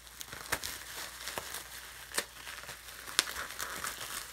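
Plastic bubble wrap crinkling as it is cut with scissors and pulled apart by hand, with about five sharp clicks, roughly one a second.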